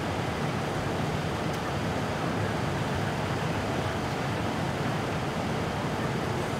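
Steady low rumble of fire apparatus engines running, with no change in level.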